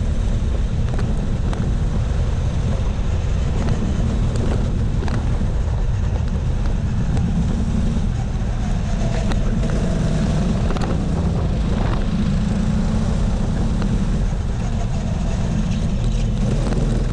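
Go-kart engine running at racing speed, heard as a steady low rumble with wind rushing over the kart-mounted camera's microphone.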